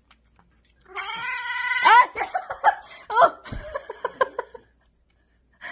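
A cat yowling while it eats a lickable puree treat: one long drawn-out call starting about a second in, then a string of shorter rising meows and yowls.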